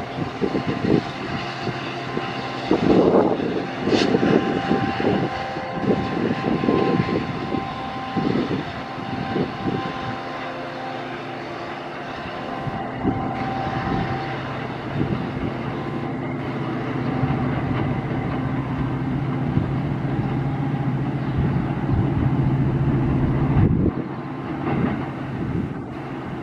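A diesel train running past, its engine giving a steady low drone. A series of irregular knocks in the first ten seconds or so.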